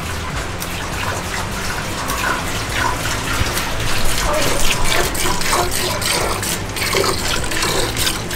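Streams of milk squirting into a stainless steel pail as a dairy cow is hand-milked, a repeated hissing splash with each squirt.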